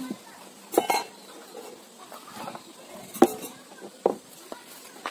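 A few separate clinks and knocks of a utensil against a metal cooking pot, the loudest about three seconds in, with quiet between them.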